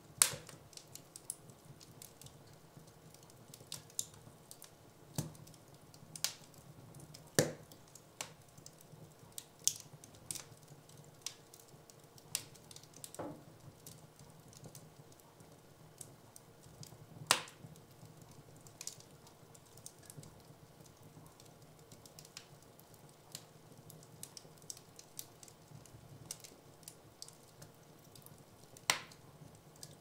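Wood fire in a fireplace crackling, with irregular sharp pops and snaps; a few louder cracks stand out, about a second in, around a quarter of the way through, a little past the middle and near the end.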